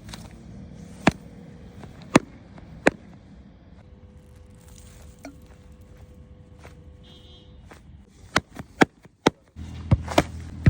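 Sharp taps and knocks from handling during an unboxing, three spaced apart in the first three seconds and a quick run of them in the last two seconds, over a low steady background.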